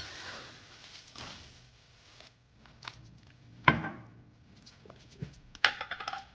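Scattered knocks and clicks with soft rustling, as of objects being handled and set down; the sharpest knock comes about three and a half seconds in, and a quick run of clicks comes near the end.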